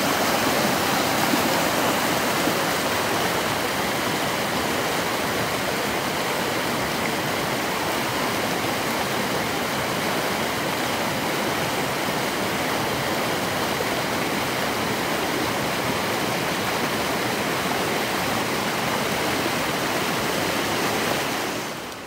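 Rushing mountain creek: white water tumbling over rocks in a steady, even rush, which drops in level just before the end.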